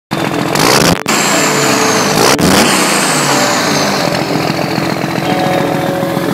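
An engine revving up and down over and over, with two sharp hits about one and two and a half seconds in and a high whistle sliding slowly down in pitch.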